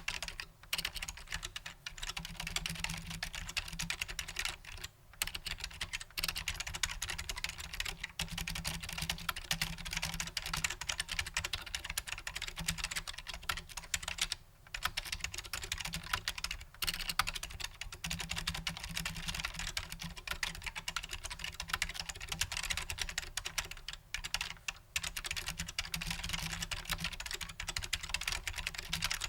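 Continuous typing on a Matias Quiet Pro mechanical keyboard with Alps-clone switches: a dense, fast run of key clicks, broken by a few short pauses.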